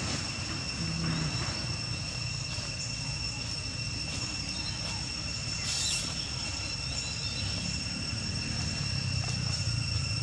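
Insects droning steadily in the trees, two even high-pitched tones held without a break, over a low rumble. A brief rustling burst about six seconds in.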